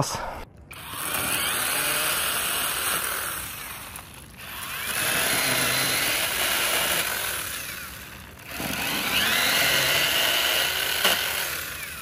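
A spinning fishing reel being cranked in three spells of about three seconds each, a whirring grind that rises and fades with each spell.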